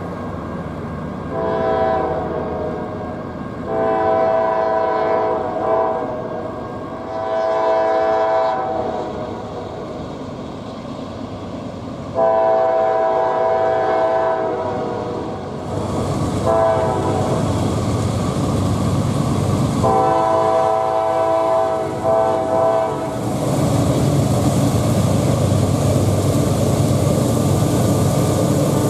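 Multi-chime horn of an approaching CSX diesel freight locomotive sounding for a grade crossing: several long blasts, a short one, then a last long one. About three-quarters of the way through, the locomotives pass close by with a loud engine rumble and rolling wheel noise.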